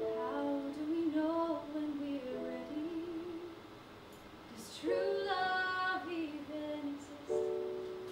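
A woman singing a musical theatre song to piano accompaniment: two sung phrases with an audible breath between them, and a piano chord struck near the end.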